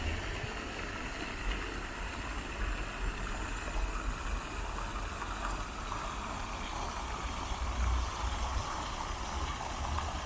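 Steady low rumble and hiss of a running vehicle, with no distinct events.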